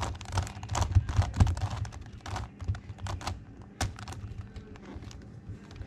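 Plastic megaminx puzzle being turned face after face, a quick run of clicks and clacks that thins out after about two seconds.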